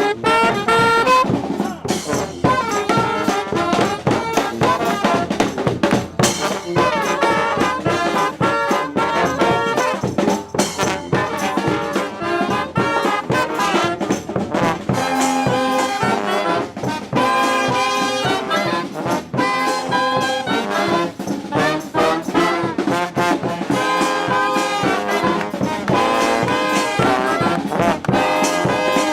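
A street brass band playing live: trumpets and trombones carrying the tune and harmony over a drum beat.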